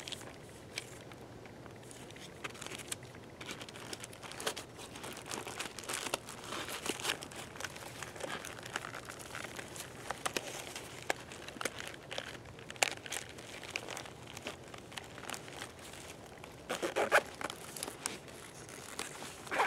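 Crinkling and rustling of plastic-wrapped first-aid supplies being handled in a small trauma bag, in scattered bursts with a louder flurry near the end.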